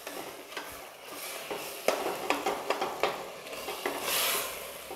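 Wooden spatula stirring and scraping a thick mutton masala in a pressure cooker, with frying sizzle and scattered knocks of the spatula against the pot. A louder swell of sizzling comes about four seconds in.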